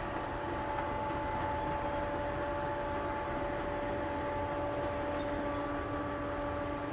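Freight train of empty tank cars rolling past: a steady rumble of steel wheels on rail, with a few steady ringing tones held over it.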